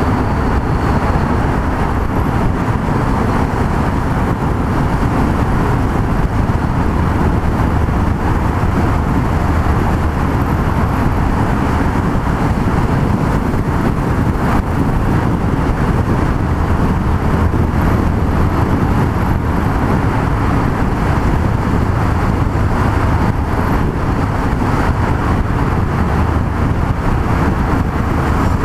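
Yamaha MT-03 660's single-cylinder engine running at a steady cruise, with a low, even hum under road and wind noise.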